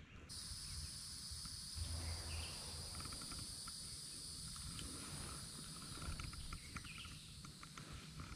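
Steady high-pitched insect chorus that starts abruptly just after the opening, with scattered light ticks and a low rumble beneath it.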